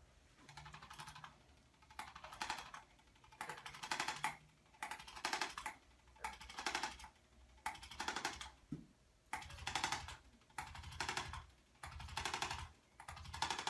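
About ten bursts of rapid mechanical clicking, roughly one every second and a quarter, each about half a second long. A low hum runs under the later bursts.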